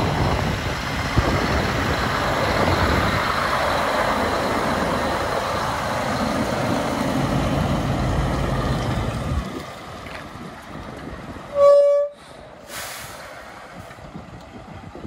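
Scania T124 truck's diesel engine running as the truck drives off, dropping away about nine seconds in. Then a short horn toot, and about a second later a brief hiss of air.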